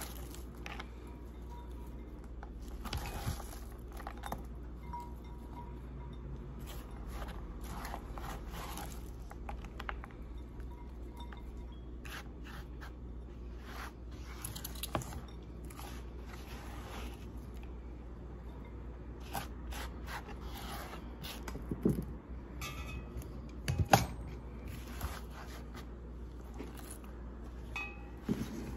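Chopped raw cabbage being scooped and dropped by hand into a glass bowl and a palm sweeping scraps across a plastic cutting board: scattered short rustles and scrapes, with a couple of sharper knocks, the loudest about three-quarters of the way through.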